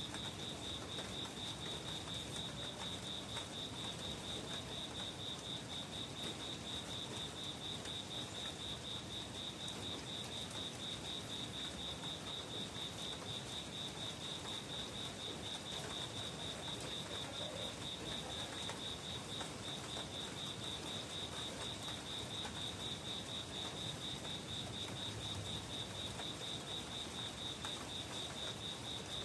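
A cricket chirping steadily: an unbroken run of evenly spaced, high-pitched pulses over a faint hiss.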